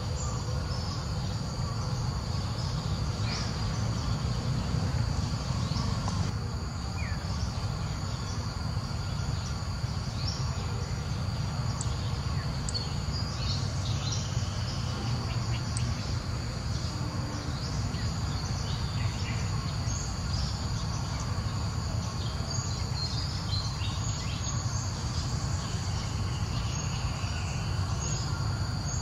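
Steady high drone of insects, unbroken throughout, with scattered short high chirps and a low steady rumble underneath.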